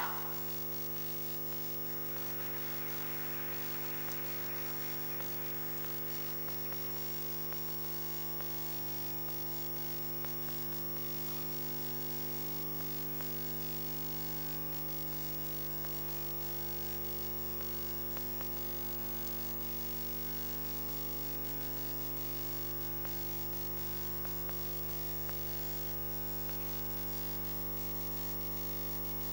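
Steady electrical mains hum: a low buzz of evenly spaced tones that holds unchanged throughout, with a faint hiss briefly swelling a couple of seconds in.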